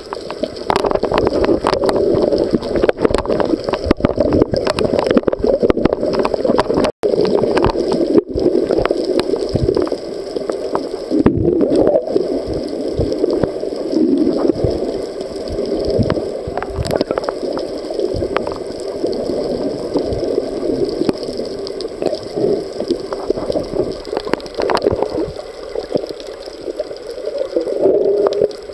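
Muffled underwater sound picked up by a camera held below the surface: a steady gurgling wash of water with crackling clicks throughout, cut by a brief dropout about seven seconds in.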